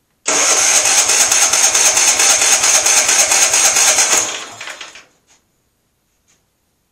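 MTD Yard Machines 13 hp lawn tractor engine catching on starter fluid and putting roughly for about four seconds, then dying away. The owner takes this short run as a sign that only the carburetor needs cleaning.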